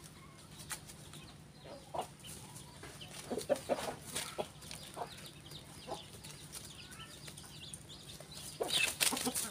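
Village chickens (ayam kampung) clucking in short, scattered calls while foraging, with a louder sound near the end.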